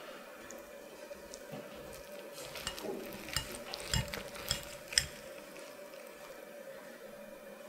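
Knife and fork cutting through a minced-meat patty in sauce on a ceramic plate: a run of light clicks and scrapes from the cutlery meeting the plate, starting about two and a half seconds in, with the sharpest click about five seconds in. A faint steady hum sits underneath.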